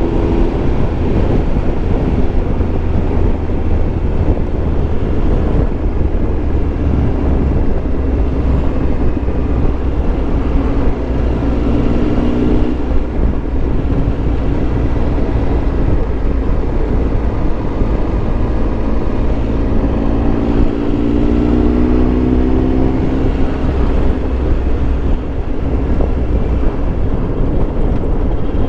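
Triumph Tiger Explorer 1200 motorcycle's three-cylinder engine running steadily while riding, its note climbing twice, a little after ten seconds in and again past the twenty-second mark, as the bike accelerates.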